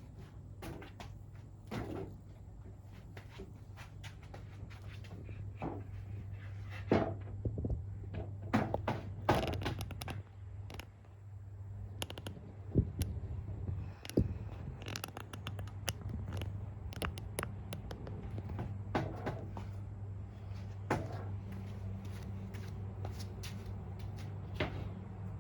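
Irregular knocks, clunks and clatter of wooden framing lumber being handled and set in place, over a steady low hum.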